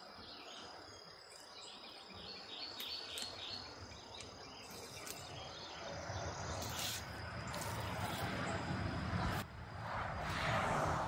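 Insects buzzing steadily in a high, even tone with birds chirping. From about six seconds in, rustling and handling noise grows louder as the roll of insulation wrap is worked, loudest near the end.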